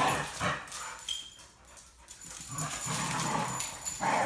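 Two dogs play-fighting, making bursts of dog noise with a brief lull in the middle.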